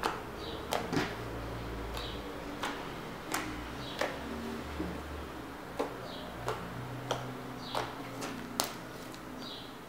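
Fluffy slime loaded with shaving foam being kneaded and squeezed by hand, giving sharp little clicks and pops about one to two a second at uneven intervals, over a steady low hum.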